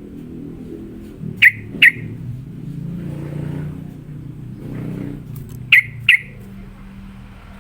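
Yellow-vented bulbul giving sharp, loud chip calls in two quick pairs about four seconds apart, over a steady low rumble.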